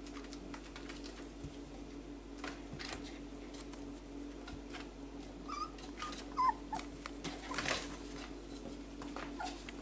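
Four-week-old whippet puppies whimpering, short high whines that bend in pitch, bunched past the middle with a couple more near the end. A few soft clicks and rustles of movement come through, and a steady hum runs underneath.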